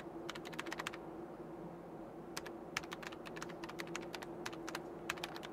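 Computer keyboard typing, added as a sound effect: quick runs of key clicks, one burst in the first second and a longer one from about halfway on, over a steady low hum.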